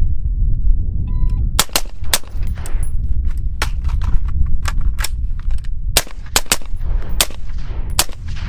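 A 5.56 AR pistol with an 8-inch barrel fires through a Wolfpack Armory Disruptor 556K suppressor mounted directly to the muzzle, below the can's minimum barrel length. From about a second and a half in, some fifteen suppressed shots come in a quick, irregular string, often in close pairs, over a heavy low rumble.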